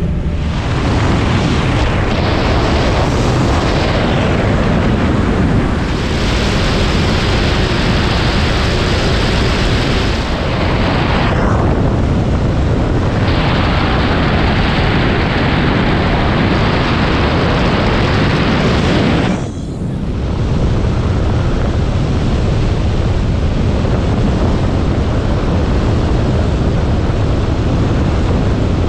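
Loud, steady rush of airflow and wind noise over a sailplane's canopy and the camera microphone, from the takeoff roll into flight. The noise changes character abruptly a few times and dips sharply about twenty seconds in.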